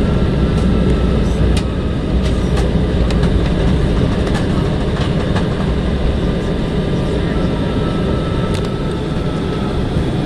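Steady low rumble inside the cabin of an Airbus A320 rolling on the ground just after landing, with light rattles and clicks from the cabin fittings and a faint steady whine.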